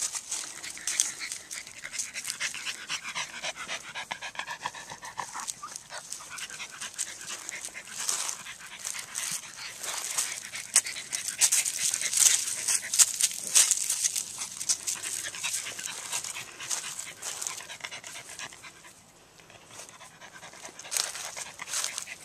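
Small dogs playing in dry fallen leaves, with the leaves crackling and rustling under their paws throughout and a dog panting close by. A short pitched whine comes a few seconds in.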